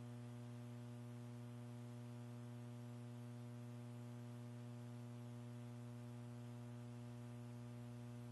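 Faint, steady electrical mains hum with a buzzy ladder of evenly spaced overtones; no rocket sound is heard.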